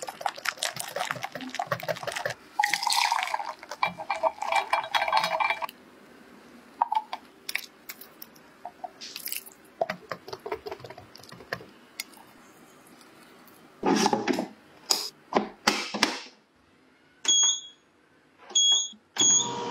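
Wire whisk stirring a batter in a glass mixing bowl, clinking and scraping against the glass: quick, busy strokes at first, then sparser ones. Near the end come three short electronic beeps as buttons on the ice cream maker's control panel are pressed.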